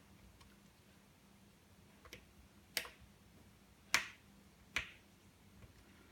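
A handful of small sharp clicks, irregularly spaced, the loudest about four seconds in: small parts and tools being handled and pressed into place inside an opened iPhone 5.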